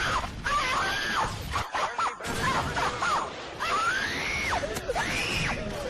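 A high-pitched meme sound effect: a run of squealing tones that slide up and fall back down, one after another with short gaps.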